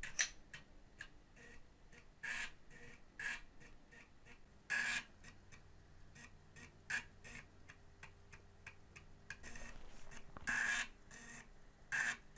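Panasonic JU-253 Amiga 3.5-inch floppy drive booting a Workbench disk: irregular clicks and short buzzing bursts of the read head stepping between tracks, with a faint low hum through the middle. The drive is reading the disk successfully after a failed capacitor was replaced.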